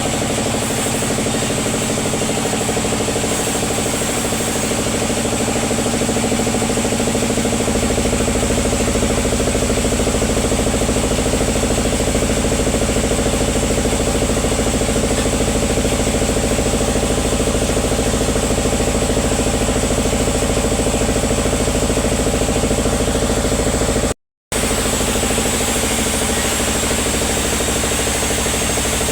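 Sawmill machinery running steadily: a constant engine-driven drone with a deeper hum that grows stronger a few seconds in. It cuts out for an instant near the end.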